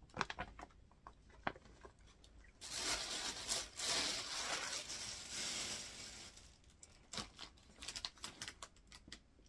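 Gift paper being handled: a few light taps, then about three seconds of dense rustling and crinkling of paper starting about two and a half seconds in, then scattered small crinkles and taps.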